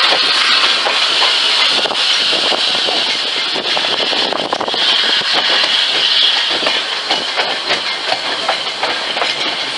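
Railway carriage running behind the steam locomotive Flying Scotsman: a steady hiss and rumble of wheels on rail, with quick rattles and clicks throughout.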